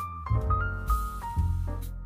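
Instrumental background music: piano notes over a sustained bass line with a regular beat.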